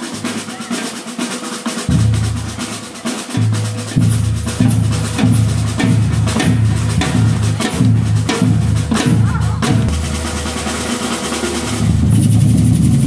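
Drum kit playing: fast snare rolls over bass drum hits, with heavy low hits coming about twice a second from about four seconds in.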